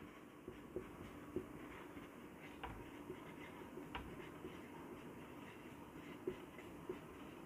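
Marker pen writing on a whiteboard: faint, irregular scratches and taps of the tip over a quiet room background.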